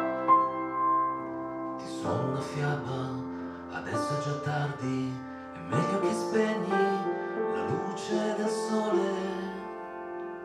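Live piano song: a piano played with a man singing over it, the music easing off on held notes near the end as the song closes.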